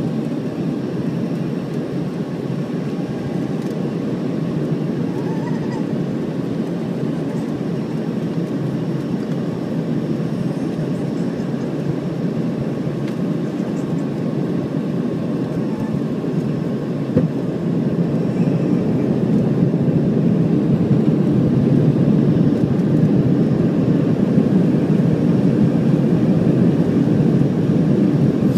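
Steady cabin noise inside an Embraer ERJ-135 regional jet on approach: the rush of airflow and the hum of its two rear-mounted Rolls-Royce AE 3007 turbofan engines. It grows a little louder in the second half, with a single brief knock about 17 seconds in.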